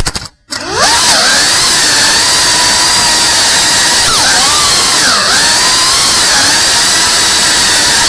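3.5-inch cinewhoop FPV drone's motors and ducted propellers whining loudly, the pitch dipping and rising with the throttle. The sound cuts out for a moment just after the start, then comes back climbing in pitch.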